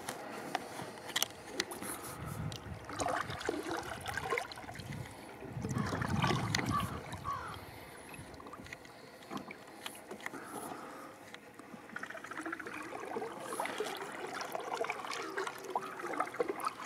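Kayak paddle dipping and splashing in the water, with drips and a few small irregular knocks.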